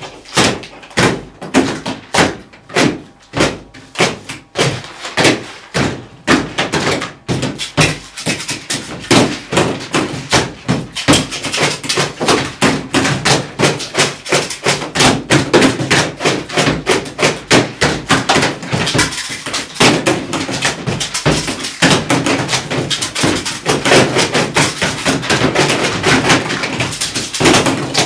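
Rhythmic knocking and tapping of desk items on folding tables, played as percussion by several people. It starts as spaced thunks, about two or three a second, and from about eight seconds in builds into a dense, fast clatter.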